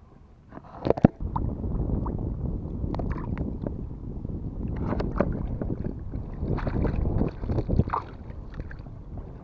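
Water sloshing and splashing close by, with wind buffeting the microphone. A sharp knock comes about a second in, and a few lighter clicks follow.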